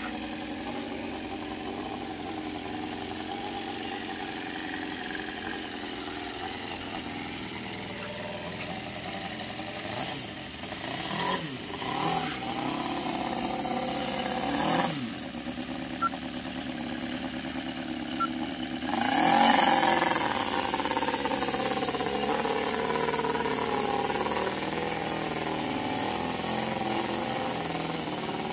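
Cison four-cylinder model engine running in an RC crawler truck. It revs up and down several times in the middle, with the loudest rev-up about two-thirds of the way through, then settles back to a steady run.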